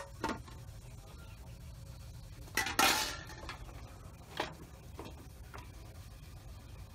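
Aluminium lid set down on a metal cooking pot with a sharp clank, followed by a few more clinks and knocks of metal cookware, the loudest a short clatter about three seconds in.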